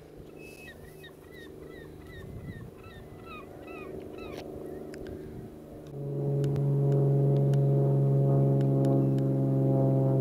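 Birds chirping in quick, short repeated calls, then about six seconds in a loud, steady low drone with many overtones sets in and holds, like a sustained brass or organ chord of background music.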